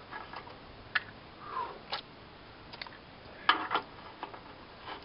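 A few scattered light clicks and knocks from handling parts, irregular, the loudest about three and a half seconds in.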